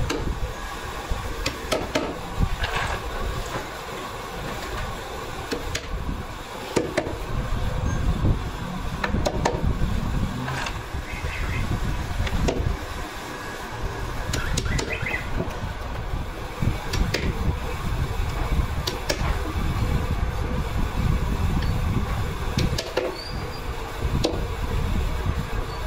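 Scattered, irregular knocks of a small hammer tapping turned wooden spindles into holes around the rim of a wooden clock face. Under them runs a steady low rumble with a faint hum.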